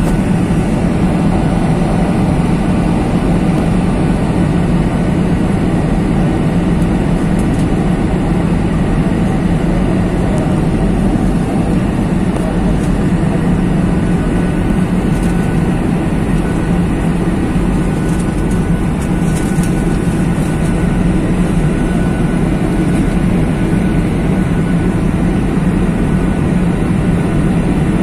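Steady cabin noise of a jet airliner in flight, heard inside the cabin from a window seat by the wing: an unchanging low drone of engines and rushing air.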